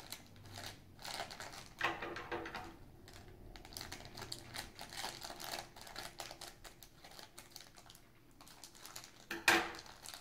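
Thin clear plastic bag crinkling and crackling as it is handled and worked open by hand, in irregular small crackles, with one louder crackle near the end.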